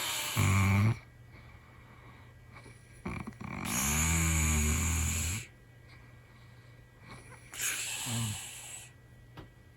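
A man snoring, each snore a low buzz mixed with a strong high hiss like air leaking. There are three snores: a short one at the start, a longer one of about two seconds in the middle, and a shorter one near the end.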